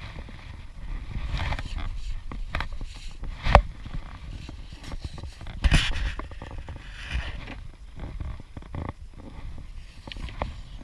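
Close-up handling noise: irregular knocks, clicks and scraping over a low rumble, with two sharper knocks, about a third of the way in and again just past the middle.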